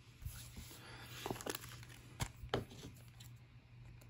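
Sealed trading card promo packs being handled: quiet rustling of the wrappers with about five light, sharp clicks and crinkles.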